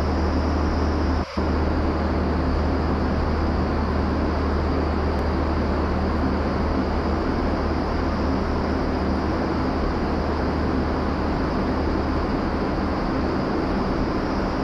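Indoor vertical wind tunnel running at flying speed: a steady, loud rush of fan-driven air over a low hum. The sound dips out briefly just over a second in.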